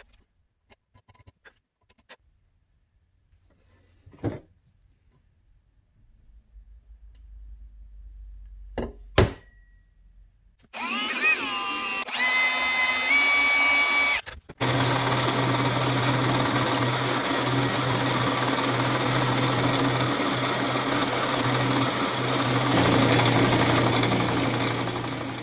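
A few light clicks and knocks, then about ten seconds in a handheld rotary power tool spins up and works the aluminum filler set into the plastic tank's shroud-nut hole. It stops for a moment, then runs steadily for about ten seconds until it cuts off near the end.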